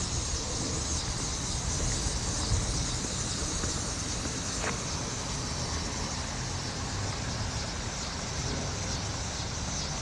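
Steady rushing hiss of river floodwater flowing across a paved road, with a fluttering low rumble of wind on the microphone.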